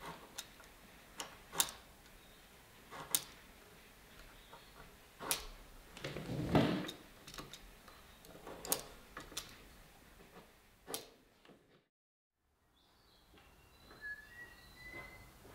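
Sharp, scattered clicks and knocks of a marking knife and wood being handled on a workbench, with a louder, longer knock about six and a half seconds in. The sound drops out briefly near the end, and a few faint high chirps follow.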